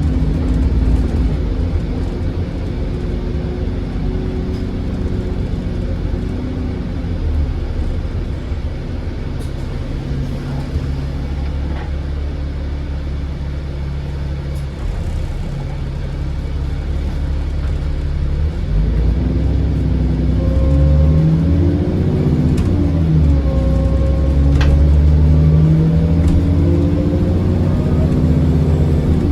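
Bus diesel engine running under load, fairly steady at first, then pulling harder from about two-thirds of the way in with the engine note rising and shifting, over a faint turbocharger whistle.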